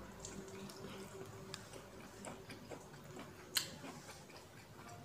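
Close-up chewing of a mouthful of food: soft wet mouth clicks and lip smacks, with one sharper click about three and a half seconds in.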